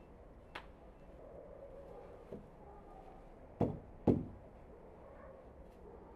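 Two sharp knocks about half a second apart, with a couple of lighter clicks before them, as a semicircular wooden arch form is handled on a metal-topped worktable.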